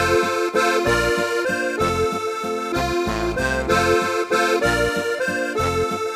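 Lively instrumental accordion folk-dance music, a Ländler, with a steady pulsing bass beat.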